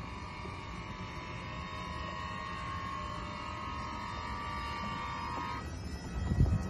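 Koenigsegg Gemera's powered doors swinging open, a steady high whine of the door motors over a low rumble, stopping abruptly about five and a half seconds in. A loud low thump follows near the end.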